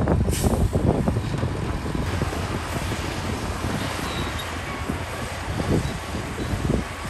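Heavy diesel earthmoving machinery running, with a steady rumble and dense, irregular clattering, and a single sharp crack about a third of a second in.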